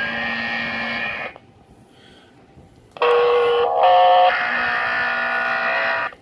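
Swissphone s.QUAD fire pager's loudspeaker playing alert tones: a chord-like tone ends about a second in, then after a pause a stepped run of electronic tones plays, changing pitch twice and cutting off suddenly.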